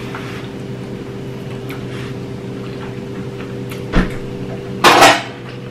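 Steady low appliance hum made of several even tones. A sharp click comes about four seconds in, and a short, louder scrape a second later, a metal fork against a china plate.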